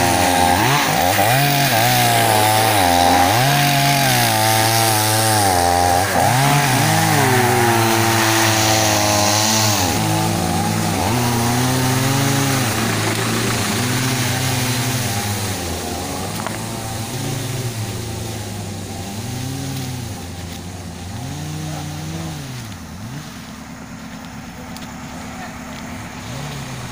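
Chainsaw cutting wood, its two-stroke engine revving up and dropping back again and again, every second or two. It grows fainter over the second half.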